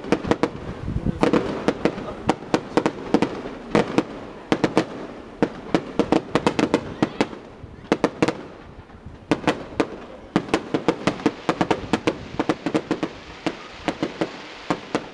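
Fireworks crackling: rapid, irregular sharp pops in dense clusters, thinning briefly about midway before crackling densely again.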